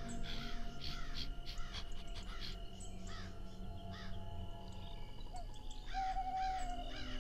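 Spotted hyenas calling over a carcass: a run of short rising-and-falling yelps, about two or three a second. The yelps pause about halfway through and pick up again near the end.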